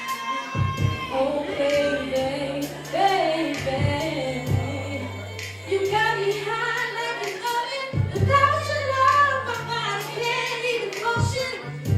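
A woman singing a held, gliding melody over a backing track with a bass line and kick drum.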